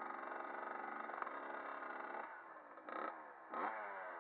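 Kawasaki KX dirt bike engine running steadily at low revs, then two quick throttle blips about three and three and a half seconds in, the revs jumping up and falling away each time.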